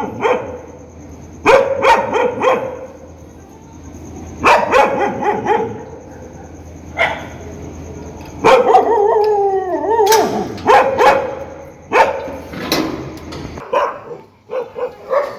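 Dog barking angrily in quick bursts of several barks every couple of seconds, with a longer falling whine-like call partway through. Near the end the recording cuts to a quieter one with scattered barks.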